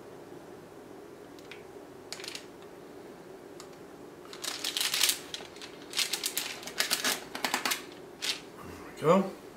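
A knife cutting a slice from a ganache-glazed chocolate mud cake on a wire cooling rack. A few light clicks come first, then a scrape about four and a half seconds in, then a quick run of clicks for nearly two seconds as the blade works down to the metal rack.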